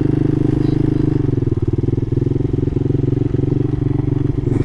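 Small single-cylinder mini motorcycle engine running at a steady cruising speed while riding.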